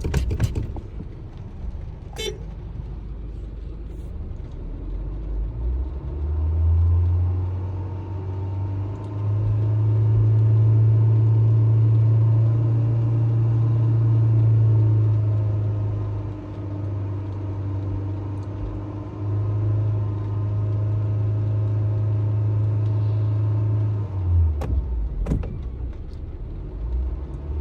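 Honda HR-V's four-cylinder engine revved up from idle about six seconds in and held at raised revs, easing off briefly twice, then dropping back to idle near the end.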